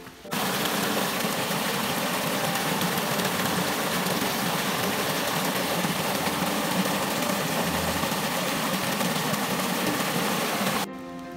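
Muddy runoff water pouring down a small rocky gully as a little waterfall: a loud, steady rushing that starts abruptly just after the start and cuts off suddenly near the end.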